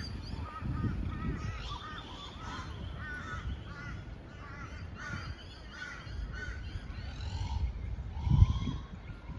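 A flock of birds calling over and over, many short harsh calls overlapping, several a second. A low bump near the end is the loudest moment.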